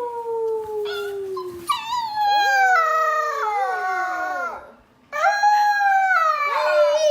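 A dog howling in long, drawn-out calls that slide down in pitch: one ends about a second and a half in, a second wavers and falls until it breaks off a little before five seconds in, and a third starts soon after.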